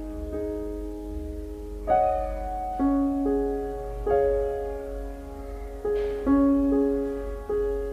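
Slow, gentle background piano music: single soft notes and chords struck about once a second and left to ring, over a faint low hum.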